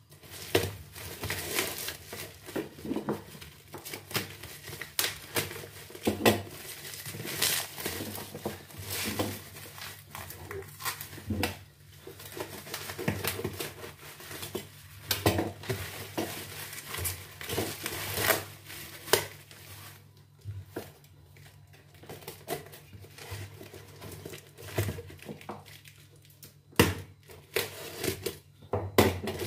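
Black plastic bag wrapping and tape being crinkled and torn off a cardboard parcel by hand, in irregular crackles and rips.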